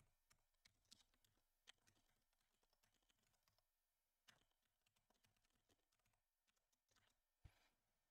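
Faint, scattered computer keyboard key clicks in a near-silent room, one a little louder near the end.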